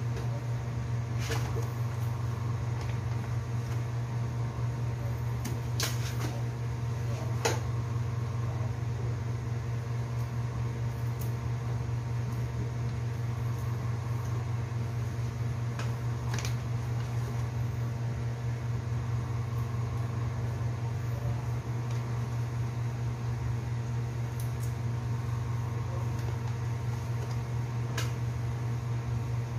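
Steady electrical motor hum from an appliance running in the room, unchanging throughout. A few light clicks come through it as shrimp are peeled by hand.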